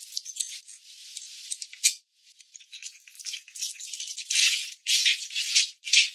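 Raw pork ribs being mixed by hand with soy sauce and seasonings in a plastic bowl, making wet, crackly squelching strokes. A lighter stretch, while the soy sauce goes in, is followed by a short break about two seconds in. After that the kneading gets louder, in long bursts near the end.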